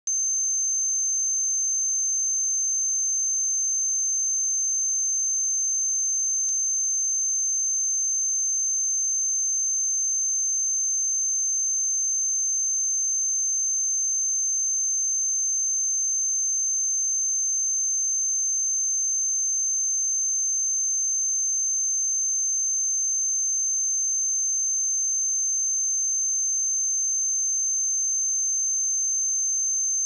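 A single pure sine-wave test tone at 6271 Hz, steady and high-pitched, held at a constant level.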